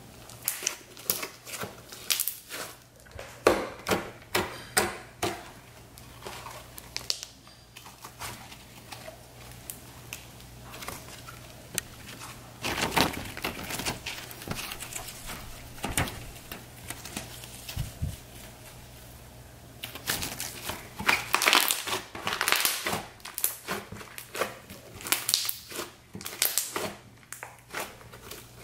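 Orange glitter slime made from Elmer's glue being squeezed, folded and pressed by hand, giving irregular sticky crackling and clicking in runs. There are quieter spells between the runs, and the busiest run comes in the last third.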